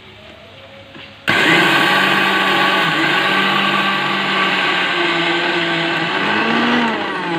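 Tandem electric mixer grinder switched on about a second in, its motor and blades then running loud and steady in a steel grinding jar.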